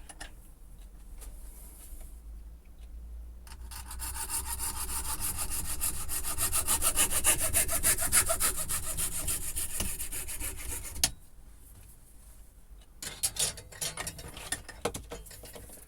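A saw cutting through a plastic vacuum cleaner attachment tube. It starts a few seconds in, grows louder and stops abruptly as the piece is cut off, followed by a few light knocks of handling.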